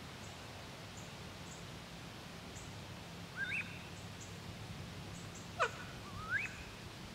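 Wood ducks calling at first light: short rising squeals, one about halfway through and two more near the end, over a steady low background hum.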